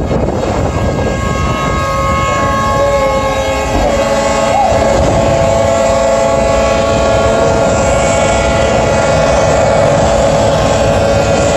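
Several horns blowing long steady blasts at different pitches, joining one after another from about a second in, over a loud low rumble and wash of water as a large cargo ship is side-launched and plunges sideways into the water.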